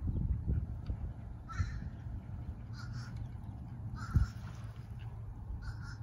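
Short, harsh, cawing bird calls, about four spaced a second or more apart, over a steady low rumble.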